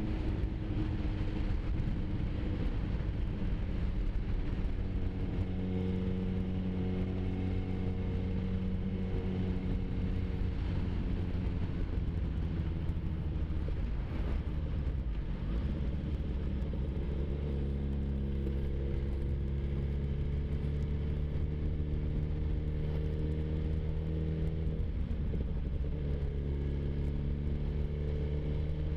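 Sport motorcycle engine running under way at a steady cruising speed, with road and wind noise. Its pitch drops and breaks about halfway through, then settles and shifts again near the end.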